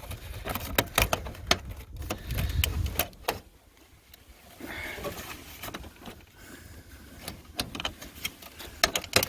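Irregular clicks, knocks and rattles of copier parts being worked loose while a stuck assembly is pulled and pried, with a low rumble over the first three seconds.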